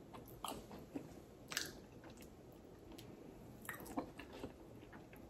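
A person chewing food with the mouth closed, faint, with a few short wet smacks scattered through.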